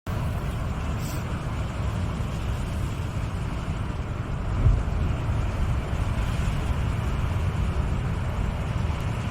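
Steady low rumble of a jet airliner's cabin in flight, with a brief louder thump about halfway through.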